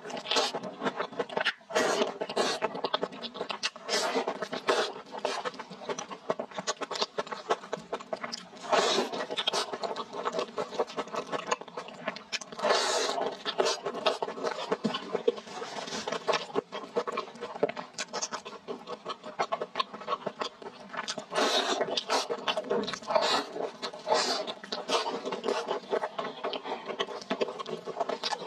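Close-miked eating: biting into and chewing a sauce-covered hamburger, with wet mouth smacks and a dense run of small clicks all the way through.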